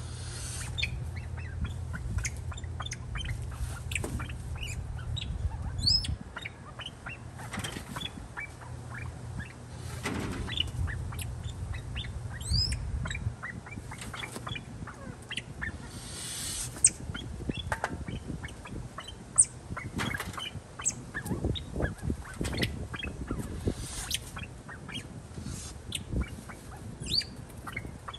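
Pheasants in an aviary giving scattered short clucks and chirps, with now and then a flurry of wing flapping. The birds in the pen are golden, Lady Amherst's and silver pheasants.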